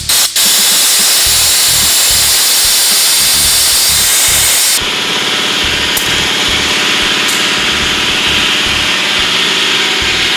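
Continuous loud compressed-air hiss of a venturi-type AirLift coolant vacuum refill tool working on a car's cooling system. About five seconds in the sound changes, as antifreeze starts being drawn up the fill hose into the system.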